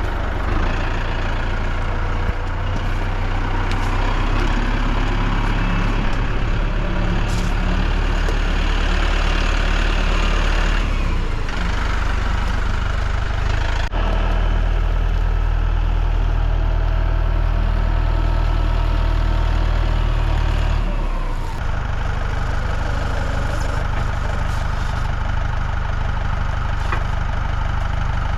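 Tractor engine running steadily, its note shifting a few times as the load or throttle changes.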